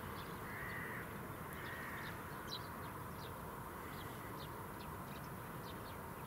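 A crow cawing twice, about half a second and about two seconds in, with short high chirps from small birds scattered throughout, over steady background noise.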